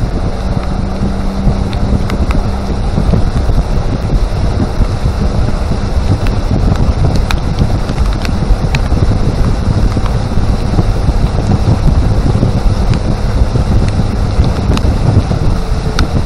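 Wind buffeting the microphone of a pontoon boat under way, over a steady low rumble from the boat moving through the water.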